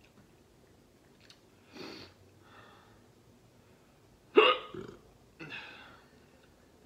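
A man hiccuping a few times, the loudest a sharp hiccup about four and a half seconds in. The hiccups come while he is suffering the burn of Carolina Reaper pepper popcorn.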